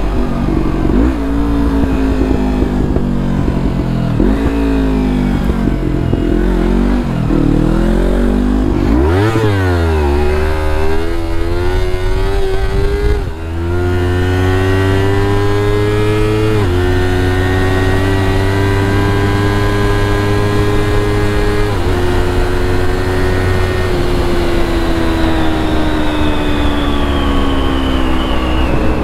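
Sport motorcycle engine running under way, its revs wavering up and down, then one sharp rev up about a third of the way in. After that come three gear changes, each a brief break in the engine note, and the note falls slowly near the end as the bike slows.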